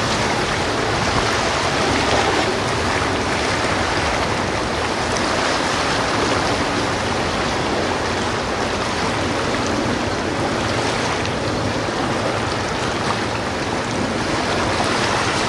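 Steady rushing of sea water and wind, like waves and a ship's wake churning, even and unbroken throughout.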